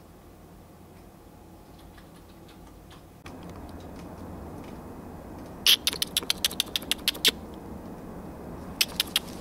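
Sharp clicks in a quick run, about ten at roughly six a second, then a pause and three more near the end, over low steady background noise that steps up a little about three seconds in.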